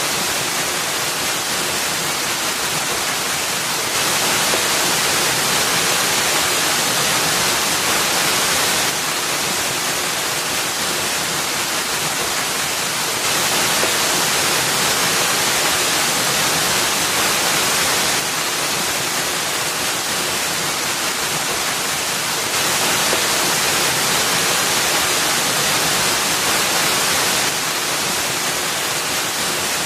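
Waterfall pouring over a rock ledge into a pool: a steady rush of falling water, strongest in the highs, stepping slightly louder and softer every few seconds.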